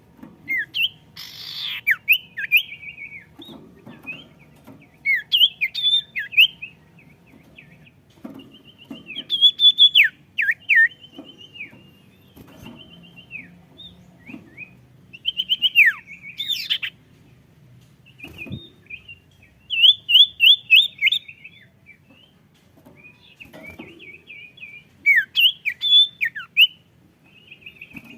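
A songbird the Indonesian bird-keeping trade calls a sirtu singing in full, busy 'gacor' form: repeated short phrases of quick high chirps, slurred notes and rapid trills, broken by brief pauses.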